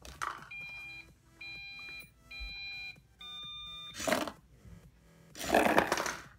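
Hobby servos in a cardboard Arduino candy vending machine whine in four short runs as they move the dispensing tray under hopper B and back. A short rush of noise comes about four seconds in, and a louder one near the end, as the candy is dispensed down the cardboard ramp.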